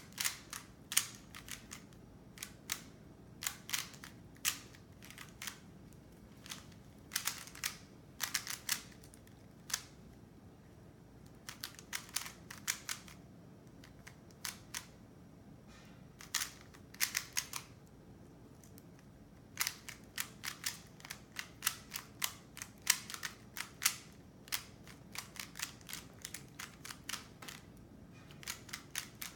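3x3 Rubik's cube being turned by hand during a beginner's-method solve: quick runs of plastic clicks and clacks in bursts of a second or two, with pauses of a few seconds between them.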